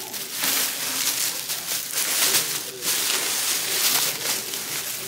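Thin plastic grocery bags rustling and crinkling as they are handled and shifted about, swelling and dipping irregularly.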